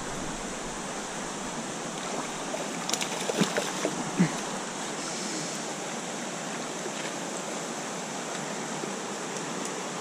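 Steady rush of a shallow, rocky trout stream, with a few short splashes and knocks about three to four seconds in as a hooked brown trout is drawn into a landing net.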